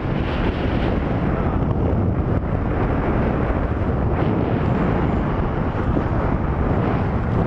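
Steady, loud rush of wind buffeting the camera microphone, heaviest in the low end, from the airflow of a tandem parachute gliding in low to land.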